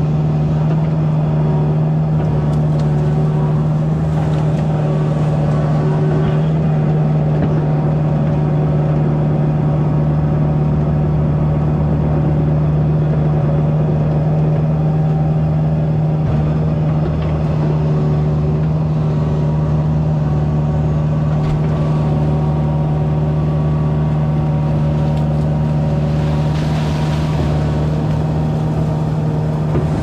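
Kubota mini excavator's diesel engine running at a steady speed, heard loud and close from the machine. Near the end a soft hiss rises briefly.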